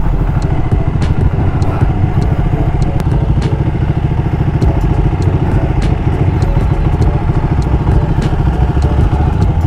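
Ducati Panigale 1299S's L-twin engine running while the bike is ridden along a road, heard from a camera mounted on the bike. The bike slows and pulls to the roadside near the end.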